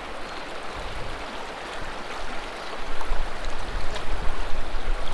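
River water flowing, a steady rushing noise, with a low rumble coming in louder about three seconds in.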